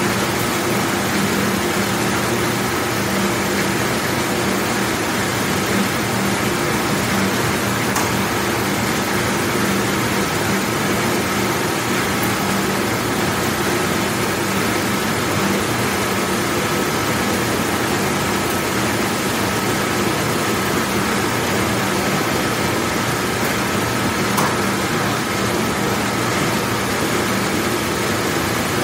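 Large Champion commercial dishwashing machine running, a loud steady wash noise with a constant motor hum.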